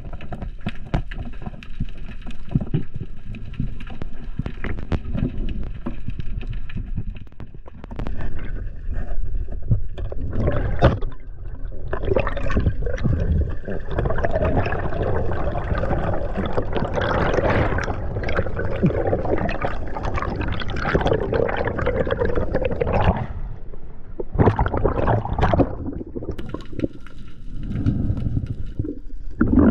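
Underwater sound picked up by a diver's action camera: rushing water and gurgling bubbles over a low rumble, swelling louder in the middle for about ten seconds and again briefly near the end.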